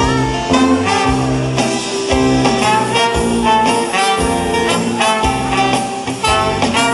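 A band playing an instrumental passage with horns carrying the tune over a steady bass line, between the sung lines of a pop song.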